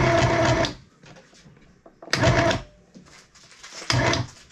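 Small electric toy sewing machine running in three short bursts of stitching: one of under a second at the start, then two shorter runs about two and about four seconds in.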